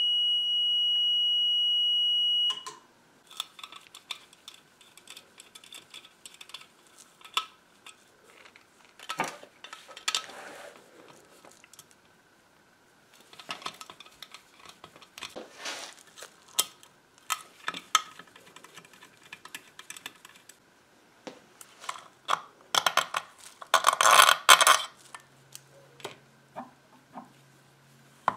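A withstanding-voltage tester's alarm sounds one steady high tone for about two and a half seconds and then cuts off, signalling that the power transformer's insulation has broken down at only 300 V. Then come irregular metal clicks, clinks and scrapes as a screwdriver works the screws and steel end cover of the transformer, with the busiest scraping near the end.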